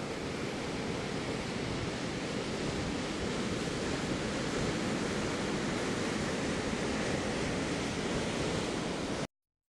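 Steady wash of ocean surf on a beach, cutting off suddenly near the end.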